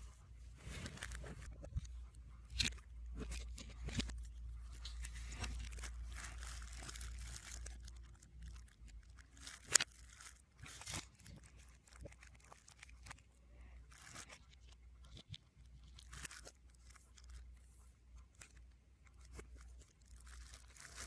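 Album packaging being handled, played backwards: plastic wrap and paper crinkling and rustling with scattered clicks, the sharpest click about ten seconds in, over a faint low hum.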